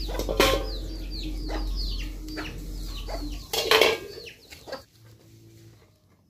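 Chickens clucking, with many quick high falling chirps. There are two loud clanks, about half a second in and just before four seconds, as a metal frying pan and slotted ladle are set on the stones of a wood fire.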